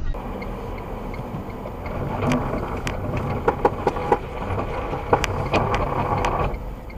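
Car driving on a snowy road, heard from inside the cabin: steady road and engine noise, with a scatter of sharp, irregular clicks and knocks from about two seconds in.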